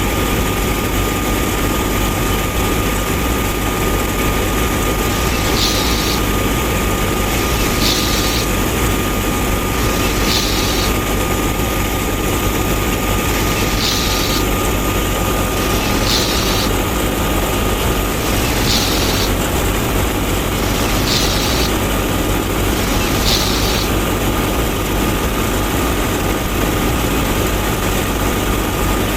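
Small motor of a DIY mini harvester-thresher model running steadily, a constant whirr with a fixed high whine.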